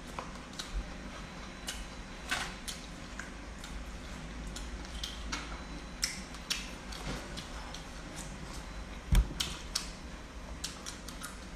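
Close-up eating sounds: chewing and lip smacks with a scatter of small clicks and crackles, and one sharper knock late on.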